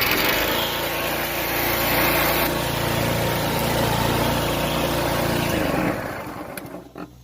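159 cc single-cylinder engine of a Cub Cadet ST100 wheeled string trimmer running steadily just after starting, then shut off about six seconds in and winding down to a stop, with a click near the end.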